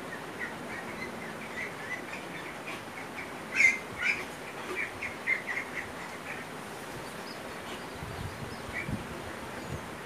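Small birds chirping: short high chirps, thickest and loudest a few seconds in, over a steady background hiss.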